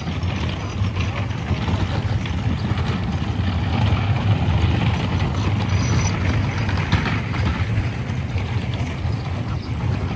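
Steady low mechanical rumble, like a large engine running, that drops away abruptly near the end.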